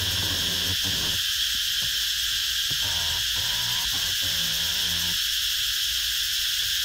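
Steady high-pitched drone of insects, unbroken throughout, with a faint low hum underneath.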